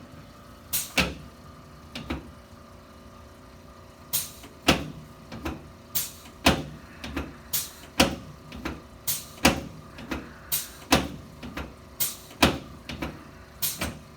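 A run of sharp clunks, about two a second. A few come near the start, then after a short pause they keep up a steady, uneven beat.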